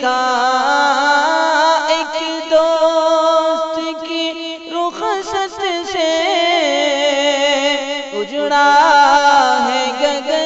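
A marsiya (Urdu elegy) being sung: a drawn-out, wavering melodic line with vibrato and pitch slides over a steady low drone, without words.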